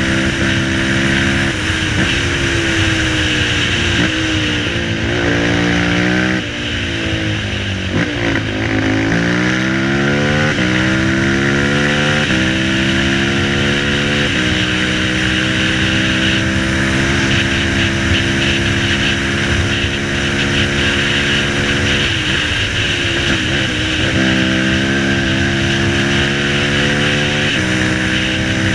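Dinli 450 quad's single-cylinder four-stroke engine heard on board while riding, its revs stepping up and down with throttle and gear changes. It falls away and picks up again about seven or eight seconds in, holds steady through the middle, and eases off and pulls again about two-thirds of the way through. Wind rushes over the microphone.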